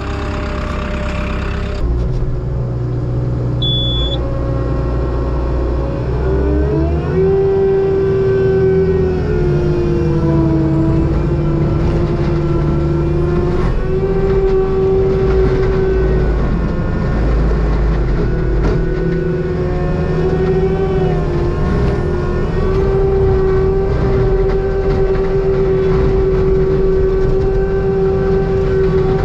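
Forestry mulcher running: engine and cutting drum rise in pitch about six seconds in as they come up to speed, then run steadily at full speed with a strong, even tone.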